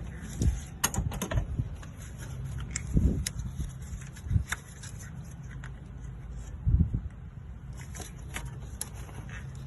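Hands working at a tight plastic wiring-connector clip on a Honda Civic's alternator: scattered clicks, knocks and scrapes, the loudest about three and seven seconds in, over a steady low rumble.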